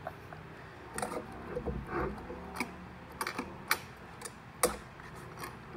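Light, irregular metallic clicks and taps as a steel square is set and shifted against a turbocharger's turbine flange and a steel table.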